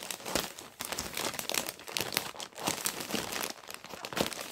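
Plastic bag crinkling as it is handled and pulled about, a quick irregular run of crackles.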